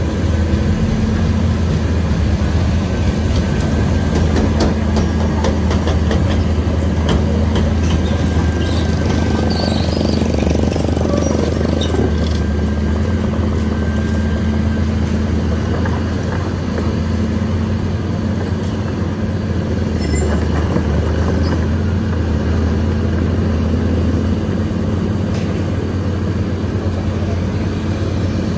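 Caterpillar 320C excavator's six-cylinder diesel engine running steadily under load as the machine moves on its tracks, with a deep, even hum. A few light knocks come through in the first half.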